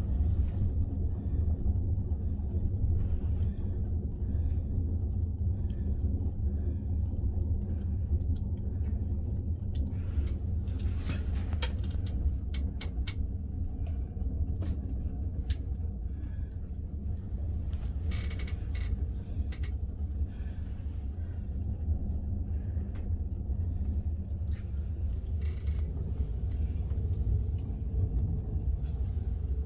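Fire burning in a glass-fronted fireplace stove: a steady low rumble of the flames and draught, with scattered sharp crackles and pops, thickest in the middle stretch.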